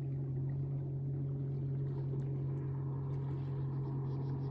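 Boat motor running steadily: a constant low hum with no change in pitch or level.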